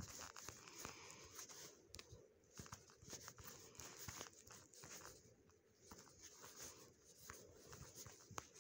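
Near silence: faint, irregular taps and light scratches of drawing on a phone touchscreen, over a low hiss.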